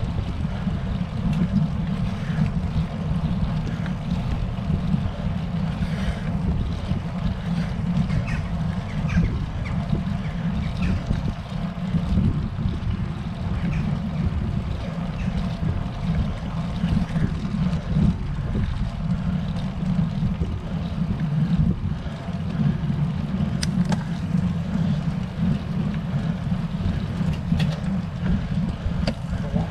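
Wind buffeting the microphone of a camera on a bicycle climbing a road: a steady low rumble that flutters unevenly in level.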